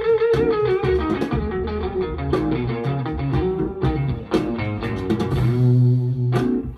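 Guitar-led blues music with bass, played back through folded-horn loudspeakers fitted with Lii Song PT-10 full-range drivers. Plucked guitar notes run throughout, with a held low note near the end.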